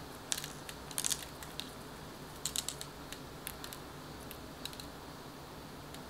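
Coarse pretzel salt sprinkled by hand onto raw pretzel dough and a Teflon-sheet-lined baking tray: the grains land as short clusters of light, sharp ticks, about one cluster a second.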